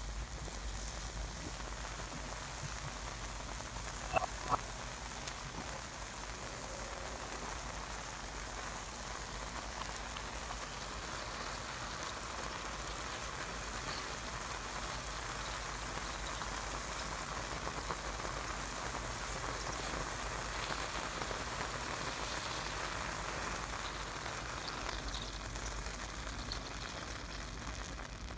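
Sulphuric acid reacting with a McChicken sandwich, a steady crackling fizz like rain on a surface as the bun and breading char. Two short sharp ticks about four seconds in.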